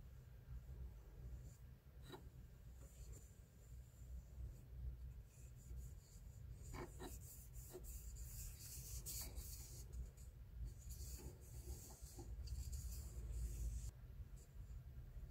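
Fingers rubbing oil into a burl-wood pen blank: faint soft rubbing of skin on oiled wood, in patches, with a few light clicks. A steady low hum sits underneath.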